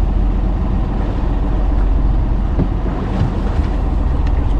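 A fishing boat's engine running steadily with a deep, even rumble, with wind buffeting the microphone.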